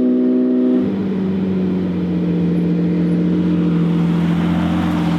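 Car engine running at a steady pitch, which drops suddenly about a second in, as at a gear change or easing off the throttle, and then holds a lower steady drone. Wind and road noise rush through the open cabin.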